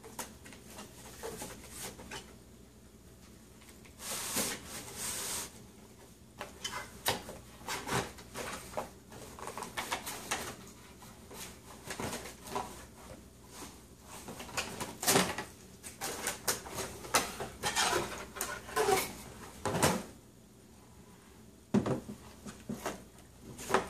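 Cardboard box and packaging rustling and scraping, with irregular clicks and knocks of a plastic toy snack stand being handled as it is taken out of its box and set up, busiest in the middle of the stretch.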